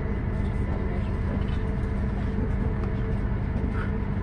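Steady low vehicle rumble with a faint, even hum over it.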